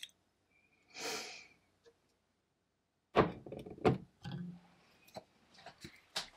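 A stainless steel double-boiler pot set down on a glass-topped hob: two loud clunks a little over three seconds in, then a few lighter knocks and clicks as it is let go. A short, soft, breathy noise comes about a second in.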